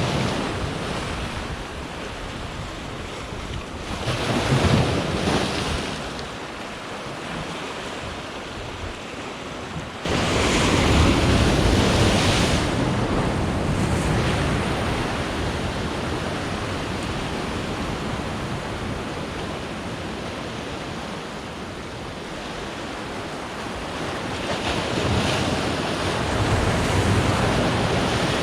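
Sea surf washing against a rocky shore, with wind buffeting the microphone. The surf swells several times, a surge coming on suddenly about a third of the way in.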